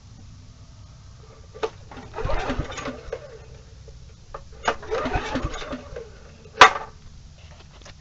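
A Briggs & Stratton portable generator being pull-started twice with the choke closed. Each yank of the recoil starter cranks the engine for about a second, and it does not keep running. A single sharp knock follows near the end. The engine only runs momentarily before dying, a fault the owner is trying to cure by cleaning the carburetor.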